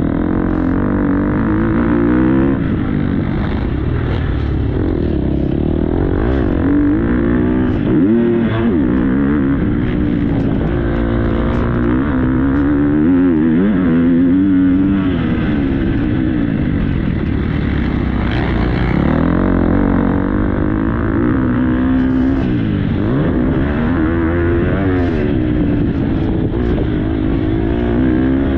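Motocross bike engine heard close up from on board, revving up and down over and over as the rider opens and closes the throttle and shifts gears around the track.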